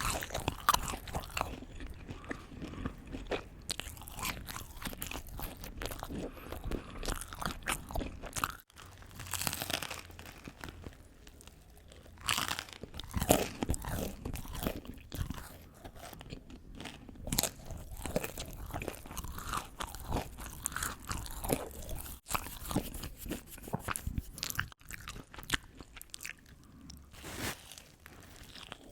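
A person chewing and biting crunchy food close to the microphone: dense, irregular crunches with wet mouth sounds, breaking off briefly a few times.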